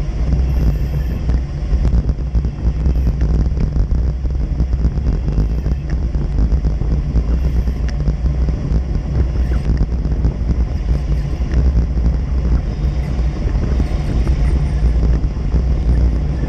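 Wind buffeting a GoPro's microphone on a fast bicycle descent: a steady, loud, low rumble.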